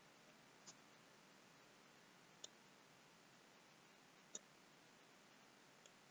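Near silence with about four faint, sharp computer mouse clicks a second or two apart.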